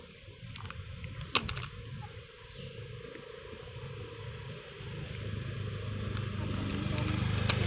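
A motor vehicle's engine approaching, its low hum growing steadily louder over the last few seconds. A single sharp click about a second and a half in.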